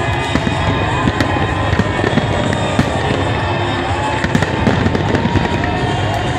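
A large fireworks display: a dense, unbroken run of bangs and crackling, with a few tones gliding in pitch.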